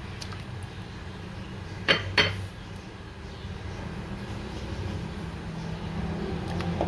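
A metal serving spoon clinks twice, sharply and in quick succession, against a dish while curry is served, over a steady low hum.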